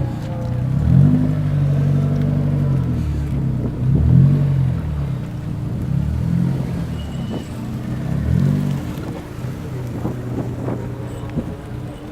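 A car engine revved several times, each rev rising and falling back in pitch.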